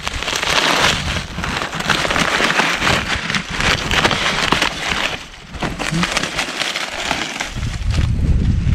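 Dry corn husks and leaves crackling and rustling in repeated bursts as ears of dried corn are snapped off the stalks and husked by gloved hands. A low rumble comes in near the end.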